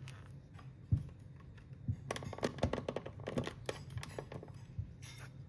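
A run of light, rapid clicks and taps from hard small objects, with a single heavier knock about a second in, over a steady low hum.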